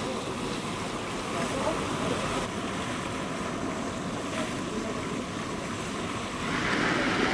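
Steady wind noise on the microphone over water and waves, louder near the end.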